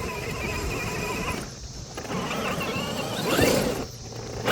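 Traxxas XRT RC truck's electric motor whining as it drives, its pitch wavering with the throttle, with a louder rising whine about three and a half seconds in.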